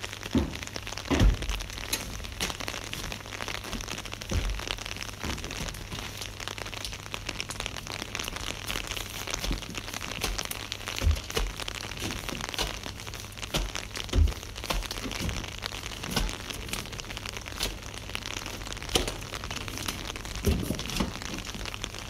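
Shovels scraping and digging into a heap of soil and grit: irregular crackling and scraping with a few dull thumps, over a low steady rumble.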